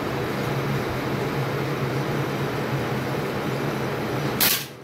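A single .22 LR rifle shot, one sharp crack near the end, over a steady background hum.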